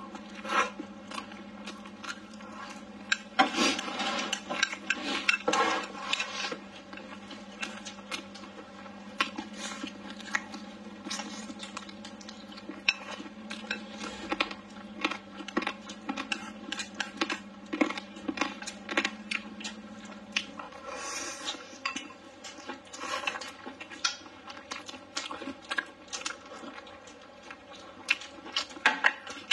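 Close-up eating sounds: chopsticks clicking and scraping against a bowl of rice and chicken, with chewing, in many short irregular clicks.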